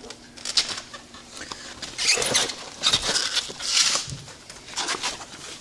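Irregular scraping and rustling from work on a rubber snowmobile track, loudest about two to four seconds in.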